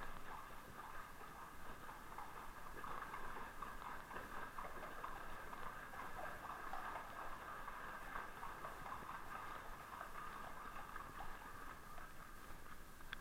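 Icelandic horses' hooves clopping and splashing through shallow water inside a concrete culvert, over a steady rush of flowing water.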